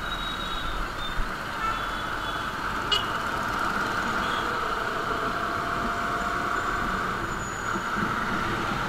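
Motorcycle riding through busy city traffic: a steady rush of wind and road noise, with a few faint high horn beeps in the first second or so and a sharp click about three seconds in.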